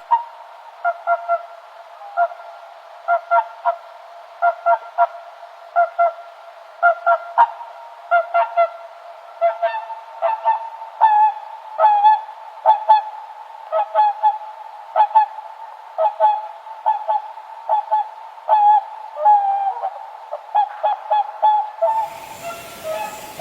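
Swans honking: dozens of short honks at irregular intervals, some in quick runs of two or three, at more than one pitch.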